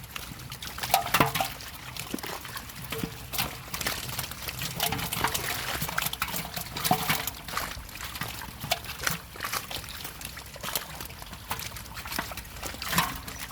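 Pond water splashing and trickling in many short, irregular splashes, as water is stirred up and runs off during net fishing.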